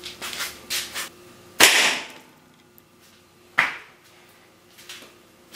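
A broadhead-tipped arrow shot into a ballistic gelatin block backed by plywood: a few light clicks, then a loud sharp whack of the shot and impact about one and a half seconds in. A second sharp knock follows about two seconds later.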